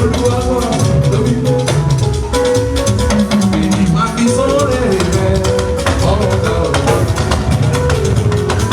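Church band playing upbeat music: a steady quick beat on drums and shakers under sustained melodic lines.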